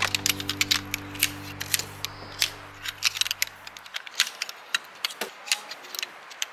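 Folding tarp poles being unfolded, their metal sections clacking and snapping together in a quick, irregular run of sharp clicks. Background music fades out about four seconds in.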